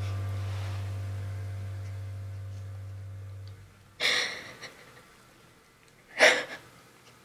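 A held music chord fades out over the first three and a half seconds. Then a young woman crying draws two sharp, shaky gasping breaths about two seconds apart, the second louder.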